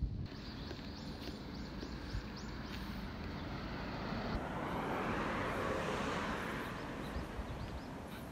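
A car driving past on the street, swelling to its loudest about six seconds in and then fading away. Before it, a quick run of short, high chirps repeats about twice a second for the first few seconds.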